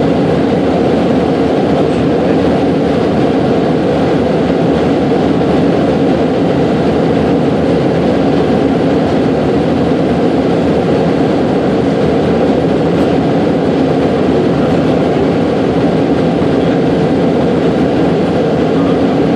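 Steady cabin noise of an airliner in flight: engines and rushing airflow heard inside the cabin, a constant, unchanging roar.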